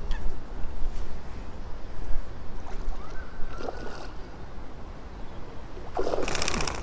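Wind rumbling on the microphone. Near the end there is a loud, brief burst of splashing as a hooked tench thrashes at the surface.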